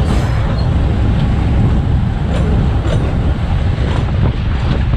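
GE 80-ton diesel-electric switcher under way, its engines running with a steady low rumble, with a few faint clicks on top.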